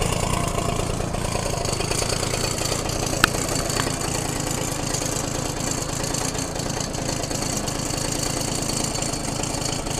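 Suzuki single-cylinder motorcycle engine idling steadily after a tune-up with a cleaned spark plug and fresh oil, clearing out old stuff after months of sitting. A single sharp click about three seconds in.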